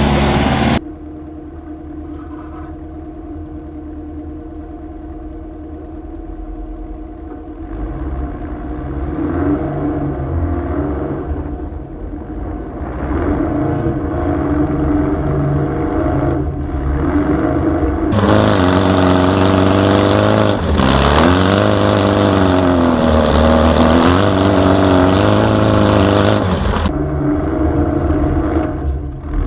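Air-cooled Volkswagen flat-four engine working hard. It is fairly quiet at first and grows louder, then is revved with its pitch rising and falling over the loudest stretch, which starts about two-thirds of the way in, before easing near the end.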